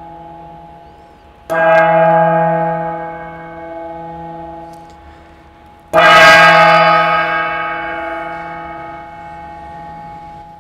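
Small hand-held metal gong struck twice with a padded mallet, about four and a half seconds apart, each strike ringing on in several steady tones that slowly fade; the second strike is the louder. The ring of an earlier strike is still dying away at the start.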